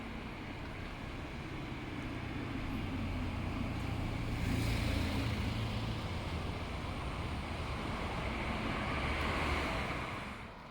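Traffic passing on a wet street: a hiss of tyres over wet road with a low engine hum, swelling twice and dropping away near the end.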